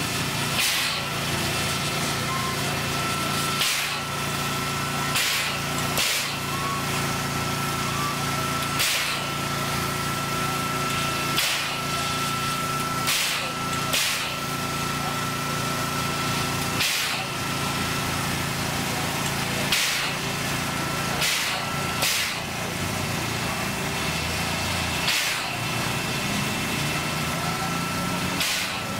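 A narrow-gauge steam locomotive standing at rest, its machinery giving a steady low hum with a thin high whine, broken every one to three seconds by sharp irregular chuffs or knocks.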